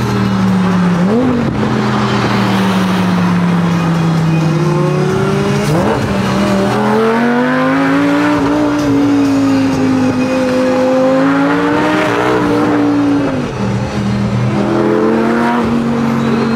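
A car engine running under load, its pitch climbing and falling with the throttle. It changes sharply about a second in, near the middle, and again near the end, the way it does at a gear change.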